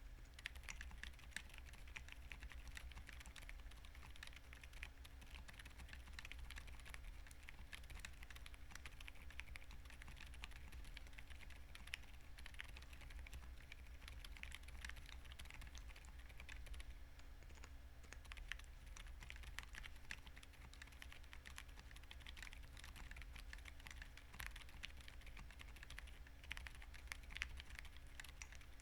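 Continuous typing on a Tofu60 2.0 custom mechanical keyboard fitted with silent linear switches (Emotoys silent Daisy) and foam-filled case, giving soft, muted key presses in a quick, steady flow. A faint steady low hum sits beneath.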